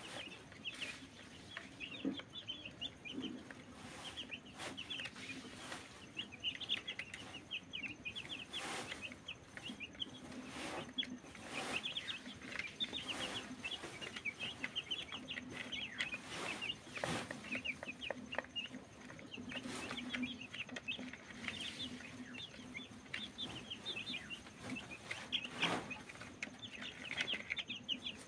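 A group of young chicks peeping continuously, many short high cheeps overlapping, while they feed from a plastic feeder. Scattered sharp taps come through as they peck at the feed in the tray.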